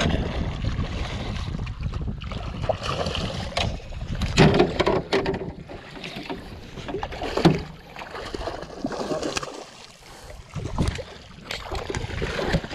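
Wind buffeting the action camera's microphone on a small fishing boat, with several sharp knocks and handling noises, the loudest about four and a half and seven and a half seconds in. Near the end a hooked fish thrashes and splashes at the surface beside the boat.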